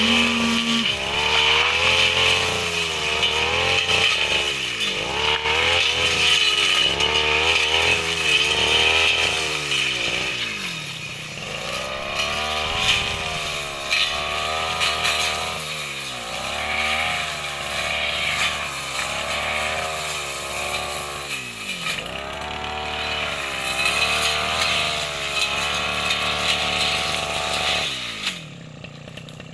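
Brush cutter engine revving up and down repeatedly while cutting grass, its pitch rising and falling every second or two. Near the end it drops back to a much quieter idle.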